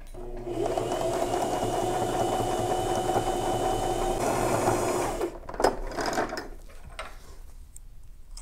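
Brother LX3817 sewing machine stitching two layers of fabric, running at a steady speed with an even hum for about five seconds, then stopping. A few clicks and fabric handling follow as the work comes off the machine.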